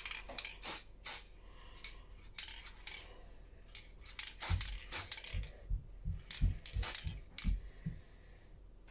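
Short hissing bursts from an aerosol can of car paint spraying a diecast model's underside, one after another, with a few dull knocks from the model being handled in the middle.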